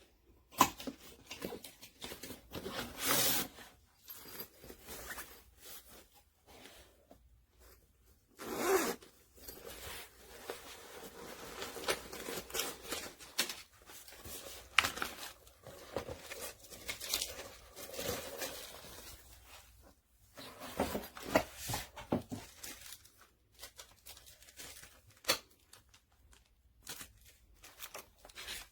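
Handling noises from a manual blood pressure kit: scattered short rustles and clicks, with longer bursts of noise about three and nine seconds in.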